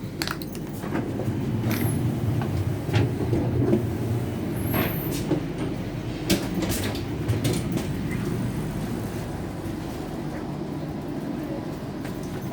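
Inside a regional passenger train: a steady low rumble with irregular clicks and rattles from the carriage.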